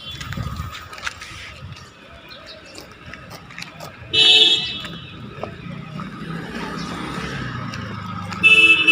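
Street traffic with a vehicle horn honking twice, each a short blast, about four seconds apart, over the rumble of passing engines.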